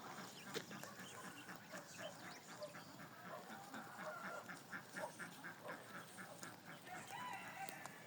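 Faint farmyard poultry clucking and calling: many short calls repeated in quick runs.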